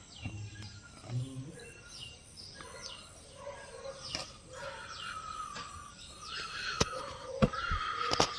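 Small birds chirping again and again, each call a short downward-sliding note, over a steady outdoor background hum. A few sharp knocks near the end.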